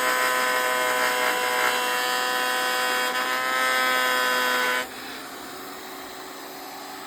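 VEVOR benchtop thickness planer running with a loud, steady high whine. About five seconds in it drops abruptly to a much quieter steady hum.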